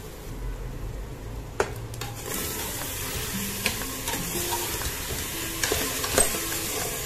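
Minced mutton with garlic and ginger paste sizzling in hot oil in a pressure cooker, stirred with a metal slotted spoon that clicks against the pot now and then. The sizzle swells about two seconds in as the paste is stirred into the meat.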